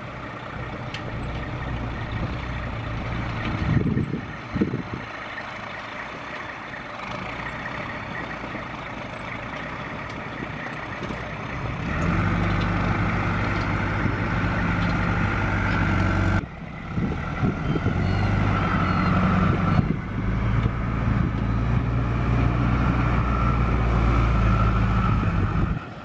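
Diesel semi-truck engine running under load as it tows a building on a house-moving trailer, getting louder about halfway through.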